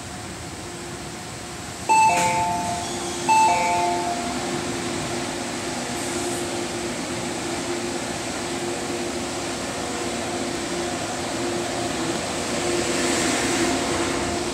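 Door chime of an ADtranz-CAF Airport Express train sounding twice as its doors and the platform screen doors open: a two-note falling ding-dong, about two seconds in and again a second and a half later. A steady hum runs underneath.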